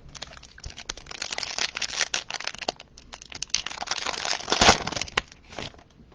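Bowman Chrome trading-card pack wrapper crinkling as it is torn open and pulled apart. It is a dense, crackly rustle with its loudest tear about four and a half seconds in, thinning out near the end.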